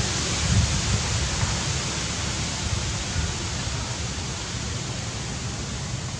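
Steady outdoor noise: an even hiss with wind buffeting the microphone as a low, uneven rumble.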